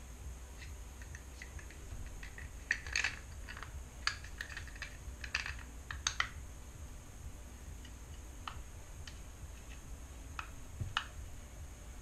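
Light plastic clicks and taps from a small 3D-printed enclosure being handled and its parts pressed together. They come in scattered clusters, the loudest about three seconds in and between four and six seconds, with a few more near the end, over a faint steady low hum.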